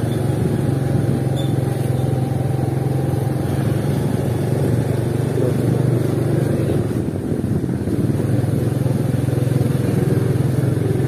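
Motorcycle engine running steadily close by, a constant low hum over the general bustle of a busy street.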